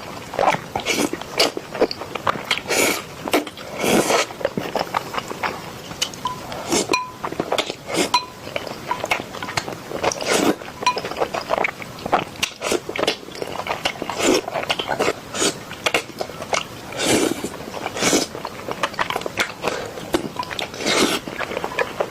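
Close-miked eating of spicy instant noodles: wet chewing and mouth smacks at an irregular pace, with a few longer noisy mouthfuls among them.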